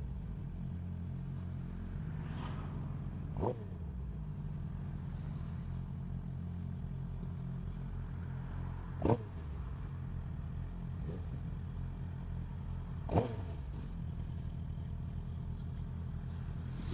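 Suzuki GSX-R sportbike's inline-four engine idling steadily at a standstill in traffic. Three short, sharp sounds come through over it, the loudest about nine seconds in.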